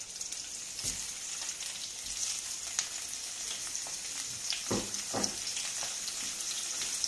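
Boiled octopus tentacles sizzling steadily in a frying pan of hot olive oil with garlic and shallot, interrupted by three dull knocks.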